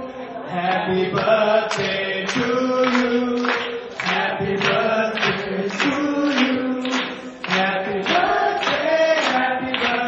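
A man singing a song into a microphone through a PA, holding long notes over a steady beat of a little under two strokes a second.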